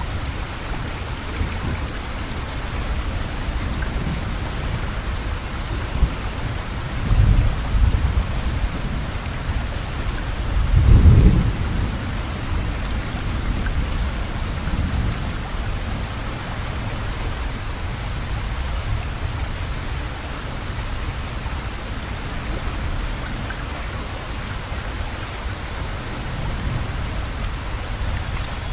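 Rain falling steadily, an even hiss. Two short low rumbles stand out, one about seven seconds in and a louder one about eleven seconds in.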